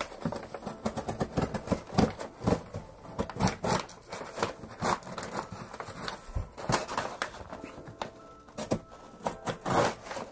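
Hands working inside a cardboard box: crumpled kraft packing paper crinkling and rustling, with scrapes and taps of a box cutter and ruler against the cardboard as it is scored. The crackles come in an irregular run, with no steady rhythm.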